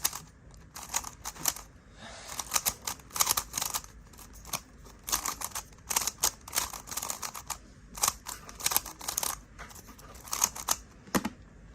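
GAN 11 M magnetic speed cube being turned fast through a J-perm algorithm: quick runs of plastic clicks and clacks as the layers turn and snap into place, with short pauses between runs.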